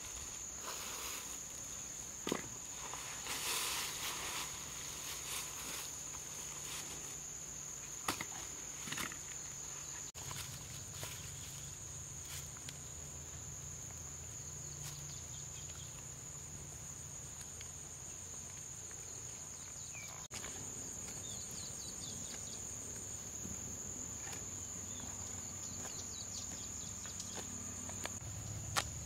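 Steady high-pitched insect chirring that goes on without a break, with scattered rustles and light clicks of dry bamboo leaves being handled, a short burst of rustling a few seconds in and a few sharp clicks near the end.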